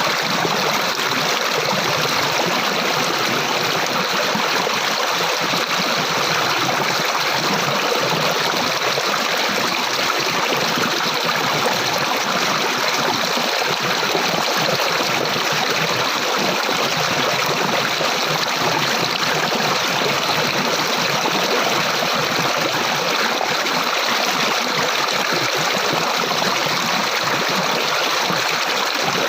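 Flowing water, a stream running steadily.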